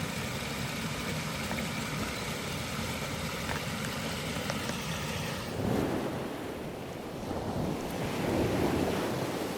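Rushing water of rain-fed runoff pouring down in a temporary waterfall: a steady rush that turns heavier and deeper about halfway through and swells again near the end.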